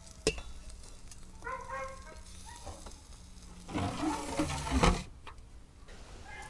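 A sharp metal clink as the skewer's crossbar is set on the tandoor rim, then the tandoor's heavy metal lid scraping and clattering as it is put over the opening, loudest near the end before it stops abruptly.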